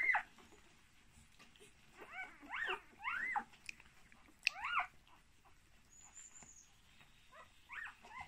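Newborn husky puppies squeaking and whimpering: short, high calls that rise and fall in pitch, coming in small clusters a second or two apart.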